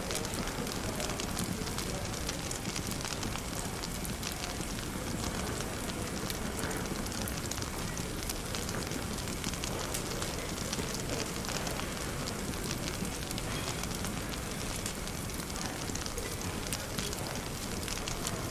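Wood fire crackling steadily, with many small sharp pops over a dense, even background hiss of cafe ambience.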